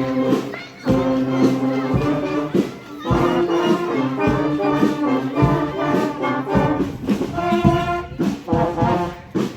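Marching band playing a brass tune, the horns sounding chords over sharp percussion hits.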